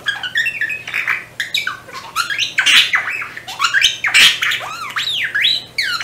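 Budgerigar warbling: a rapid, unbroken run of varied chirps that sweep up and down in pitch.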